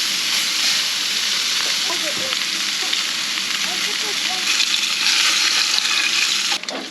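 Steak sizzling steadily as it sears in a cast iron skillet on a camp stove.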